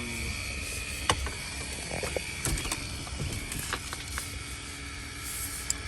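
Scattered clicks and light knocks of a hand tool and plastic dash trim being worked, as fasteners around a car's instrument cluster bezel are located and loosened, over a steady low hum.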